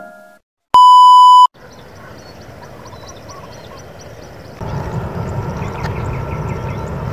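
A short, loud electronic beep, then open-air ambience with high chirps. About four and a half seconds in, the low, steady rumble of an approaching jet airliner on final approach to land comes in.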